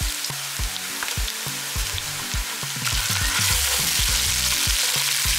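Onions and ginger garlic paste sizzling in hot oil in a pan as they are stirred. The sizzle grows louder about three seconds in.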